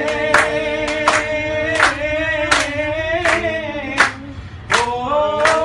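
A group of voices singing a Hindi patriotic song in unison, drawing out one long held note, with hand claps keeping a steady beat about every three-quarters of a second.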